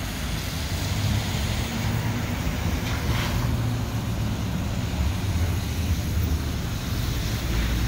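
Steady low rumble of street traffic, with a brief hiss about three seconds in.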